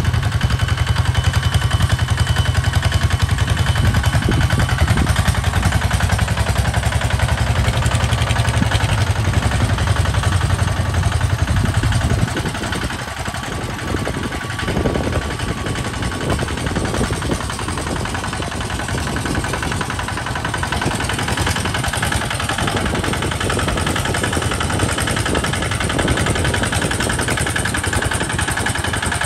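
Walking tractor's single-cylinder diesel engine running under load as it pulls a plow through sandy soil, with a fast, even chugging beat. The sound drops a little in loudness about twelve seconds in.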